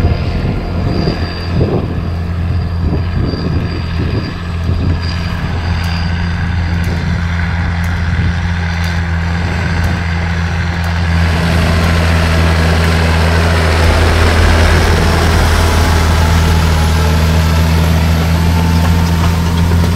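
Massey Ferguson 8470 Dyna-VT's six-cylinder SISU 84CTA diesel running steadily under load while pulling a Köckerling Allrounder 900 tine cultivator. From about halfway through, a louder rushing noise of the cultivator's tines and wheels working the stubble joins the engine.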